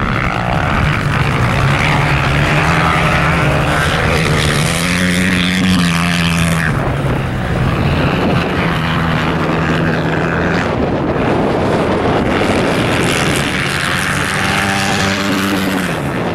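Dirt bike engine revving up and easing off again and again as the bike is ridden hard through turns on ice; the pitch climbs and drops several times, with a clear drop about seven seconds in and another near the end.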